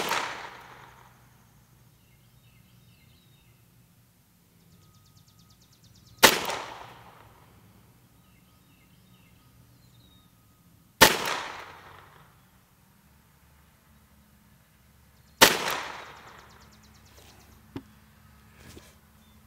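Ruger Charger .22 LR pistol fired unsuppressed: four single shots a few seconds apart, slow aimed fire, each a sharp crack with a short echo trailing off.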